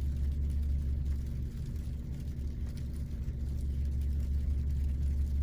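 Steady low rumble of a car engine idling, with a faint constant hum above it.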